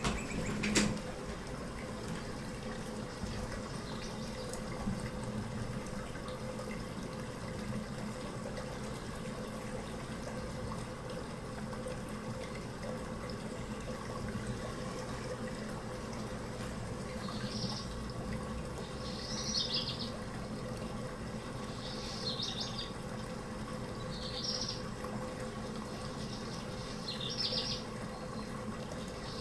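Steady rush of running water with short bird chirps, about one every two seconds, joining in from the middle on. A brief click about a second in.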